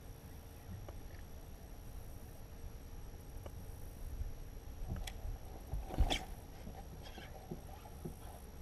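Faint knocks and handling sounds on a bass boat's front deck while an angler retrieves a lure, with one louder brushing sound about six seconds in.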